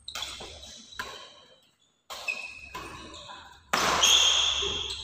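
Badminton rally: sharp racket hits on the shuttlecock roughly once a second, mixed with squeaking court shoes. The loudest hit-and-squeak comes near the end.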